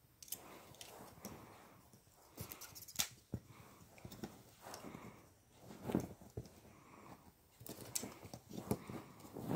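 Boston Terrier playing with a plastic claw hair clip: repeated noisy breaths and snuffles from the short-nosed dog, broken by several sharp clicks and taps as the clip and paws hit the couch.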